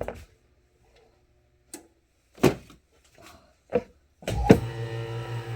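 A few sharp knocks and clacks from handling things on a bench, then about four seconds in a steady machine hum with an even pulse starts up and keeps running.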